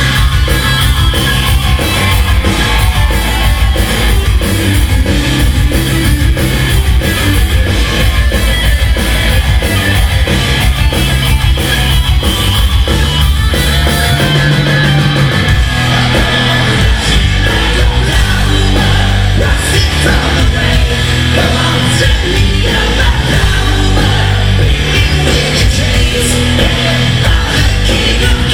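A rock band playing loud and live: electric guitars, bass and drums, with shouted singing.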